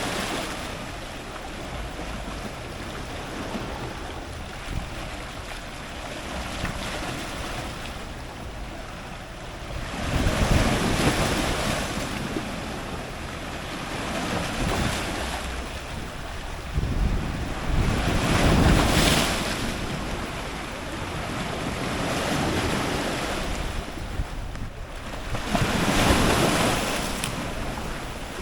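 Ocean surf breaking on rocks near the waterline: a continuous wash of water with three waves crashing in, about ten, eighteen and twenty-six seconds in, the middle one the loudest.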